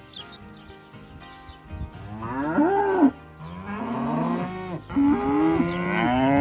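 Cattle mooing: three long moos in a row, the first starting about two seconds in and the last running to the end.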